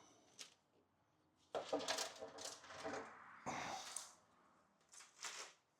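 Intermittent rustling, scraping and light clicks of wires in a wiring harness being handled and sorted.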